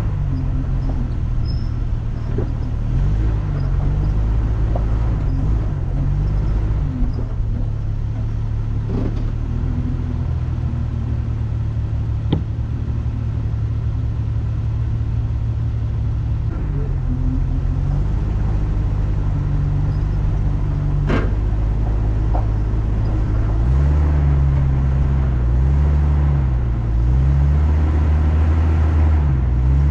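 Off-road vehicle engine running under load on a rough trail, its pitch rising and falling several times as the throttle changes, with a couple of sharp knocks midway.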